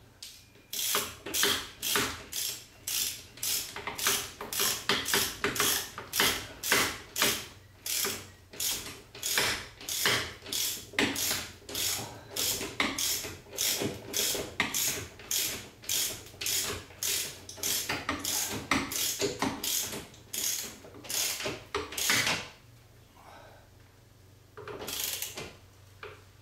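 Socket wrench ratcheting in quick back-and-forth strokes, about two a second, as a bolt mounting the bracket to the ceiling is tightened. The clicking stops about 22 seconds in and resumes for a few strokes near the end.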